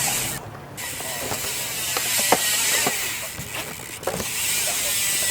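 A BMX bike rolling on skatepark concrete, with steady tyre noise and a ticking freewheel hub, and a few sharp knocks from the bike.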